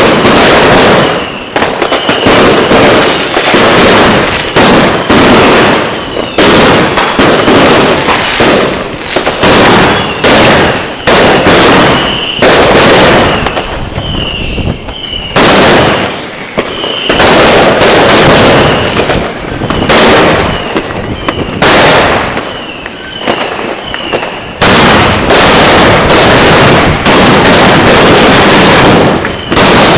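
A homemade firecracker mat going off: a fast, nearly continuous barrage of firecracker bangs at very high level, with only a few brief lulls. Short whistles are heard now and then among the bangs.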